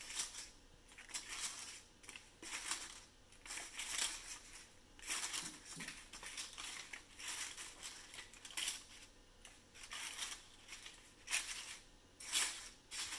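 Pleated paper candy cups rustling and crinkling as they are handled and pressed into a thin black plastic candy tray in a cardboard box, in a series of short irregular bursts about one a second.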